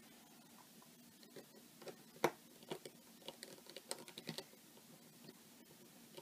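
Small, irregular clicks and taps of hands and a small screwdriver working on a laptop's screen assembly, a cluster of them from about a second in to four and a half seconds, the loudest just after two seconds.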